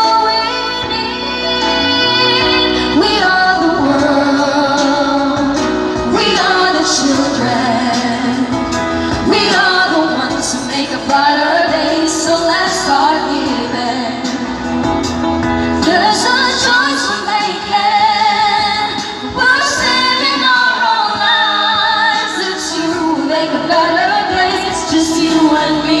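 Female vocalists singing live into microphones over instrumental accompaniment, amplified through a PA.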